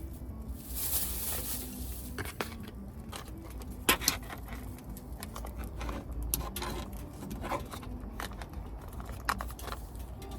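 Objects being handled: scattered small clicks and taps with some rustling, over a low steady rumble, and a short hiss about a second in.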